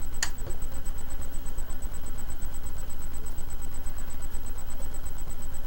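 A light switch clicks off once, just after the start, followed by a steady low rumble of room background noise.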